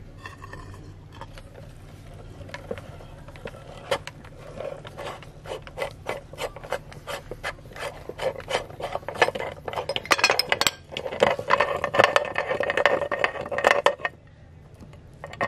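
Hand-cranked metal meat grinder crushing corn kernels: a rapid run of cracks and grinding scrapes as the auger forces the corn through the cutting plate. It grows louder and busier from about halfway and stops a little before the end.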